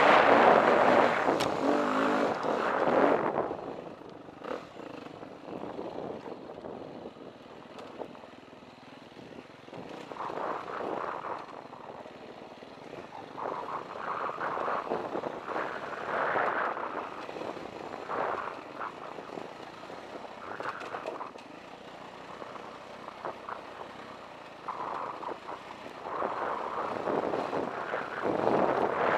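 KTM 350 EXC dirt bike's single-cylinder four-stroke engine pulling hard for the first three seconds, then dropping to a low, quiet running with short throttle blips every second or two as the bike picks its way down a rocky trail, building up again near the end.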